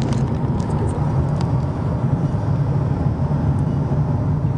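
Steady road and engine noise inside the cabin of a moving car, a constant low drone.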